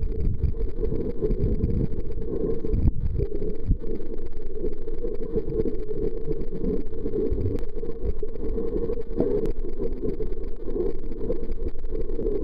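Steady muffled underwater rumble, recorded with the camera submerged, all low-pitched with no distinct events.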